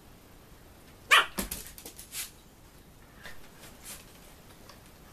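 A small dog barks once, a sharp yap about a second in, with a few fainter yips right after.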